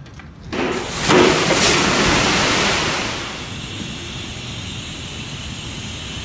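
Loud rushing noise as a hopper wagon's air-operated discharge door opens, starting about half a second in and loudest just after a second, then easing after about three seconds into a steady hiss.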